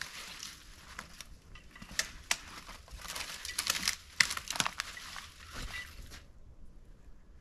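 Crunching and crackling of dry brush and crusted snow, with sharp twig snaps, as someone moves through a snowy thicket. The crackling stops abruptly about six seconds in.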